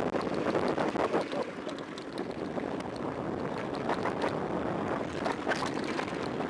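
Wind rushing over the microphone as a mountain bike rolls fast downhill on rough, cracked pavement, with tyre noise and scattered clicks and rattles from the bike jolting over the bumps.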